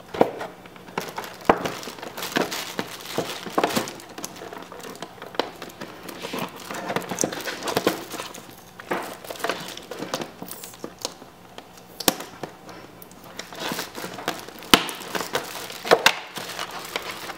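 Toy packaging being unwrapped and handled: irregular crinkling and rustling with scattered sharp clicks and taps.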